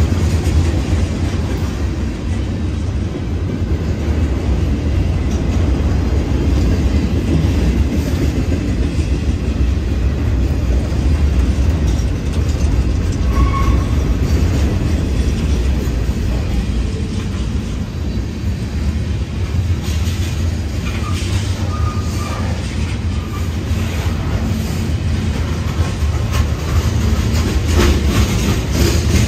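Cars of a CSX manifest freight train rolling past on street-running track: a steady heavy rumble of steel wheels on rail, with occasional clacks.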